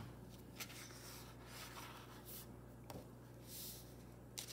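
Hands handling a paperback picture book on a wooden table, turning back its paper cover: faint rustles and slides of paper with a few light taps.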